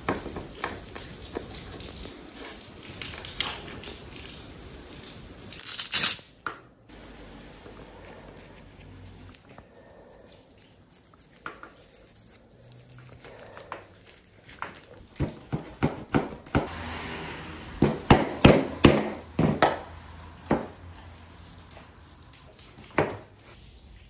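Close handling noise of hands fitting a leash string and leash to a surfboard: rustling throughout, a loud brief noise about six seconds in, and a run of sharp clicks and knocks between about fifteen and twenty seconds in, with one more near the end.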